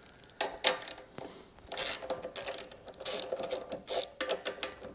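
Hand socket ratchet clicking in short, uneven runs as it works a nut on the small engine beside the carburetor.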